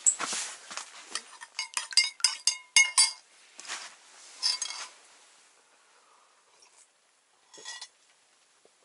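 Teaspoon stirring in a metal mug, striking its side in a quick run of ringing clinks for about two seconds, followed by a couple of softer scrapes.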